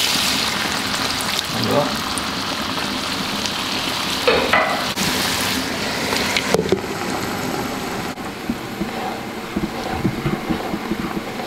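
Dry white wine sizzling and hissing in a hot frying pan of mussels, garlic and onion. About six and a half seconds in a glass lid goes on with a click and the sizzle turns muffled, with lighter bubbling and small clicks of stirring after it.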